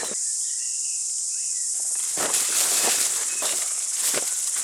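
Steady, high-pitched insect chorus, with a few faint short chirps early on; from about two seconds in, repeated rustling and scuffing from close movement.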